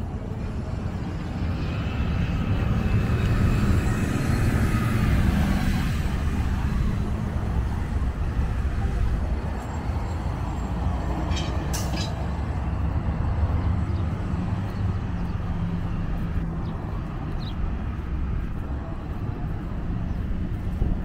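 City traffic rumbling steadily as a heavy vehicle passes, loudest a few seconds in, with a whine that rises and falls as it goes by. A couple of short sharp clicks sound near the middle.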